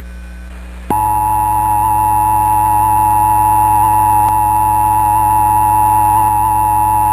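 Emergency Alert System attention signal: a steady two-tone alarm, the two tones sounding together, that starts abruptly about a second in after a low hum and holds unchanged. It announces that an emergency warning message is about to be read.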